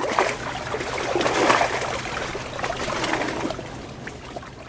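Water sloshing and gurgling with bubbles, irregular and choppy, fading toward the end.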